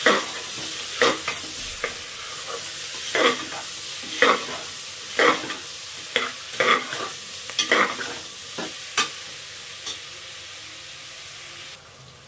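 Chana dal, bottle gourd and spice masala sizzling as they fry in an open pressure cooker. A metal spoon scrapes and knocks against the pot about once a second as it stirs, while the masala is being sautéed until cooked through. Near the end the stirring stops and the sizzle drops.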